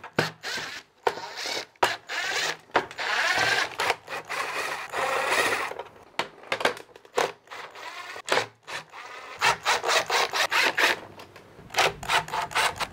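Ryobi cordless drill-driver whirring in short runs as it backs out small Phillips screws from a sheet-metal backing plate, with clicks and rattles of the screws and metal case between runs.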